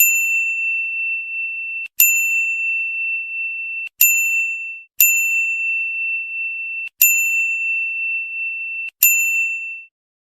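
A small metal bell struck six times, single clear dings, each ringing on for one to two seconds before the next; the last rings out and fades shortly before the end.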